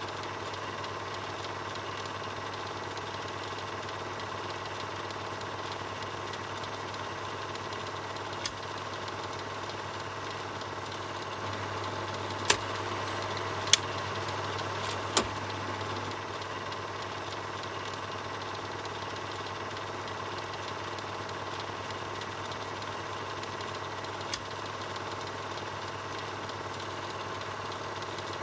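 Film projector running steadily with an even mechanical drone, broken by a few sharp clicks; three of them come close together about halfway through, while the running grows slightly louder.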